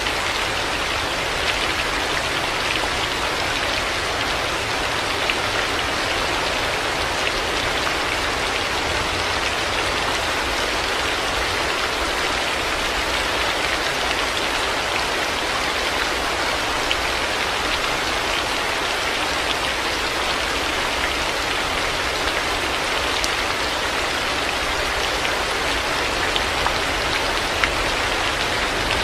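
Heavy rain falling steadily, a dense even hiss with many small drop ticks throughout.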